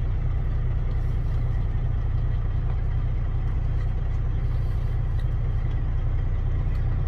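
Semi-truck's diesel engine idling, a steady low drone heard from inside the cab.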